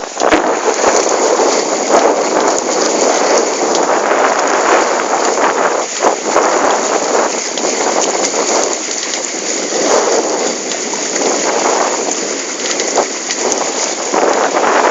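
Steady loud rushing noise with many scattered crackles, the wind and water noise picked up by a microphone aboard a sailing Hobie Cat catamaran.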